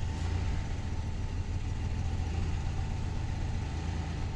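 2004 Chevrolet Impala's 3.4 L V6 idling steadily with a low rumble. It has a misfire: one cylinder is not firing, so it runs on five, traced to a failing coil pack for cylinders 1 and 4.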